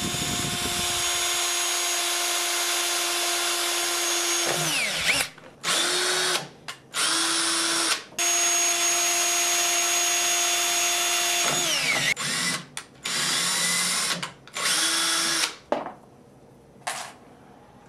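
Cordless drills running in bursts on a stainless steel band over aluminium tubing, making a hole and driving a screw into it. A steady whine for about four seconds falls away as the trigger is let go, then come short pulses, another long run that also winds down, and more short pulses before the drilling stops near the end.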